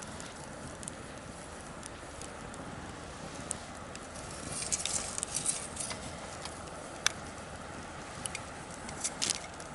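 Wood bonfire crackling over a steady low hiss, with scattered snaps. A burst of crackling comes about halfway through, a single sharp pop a couple of seconds later, and a few more snaps near the end.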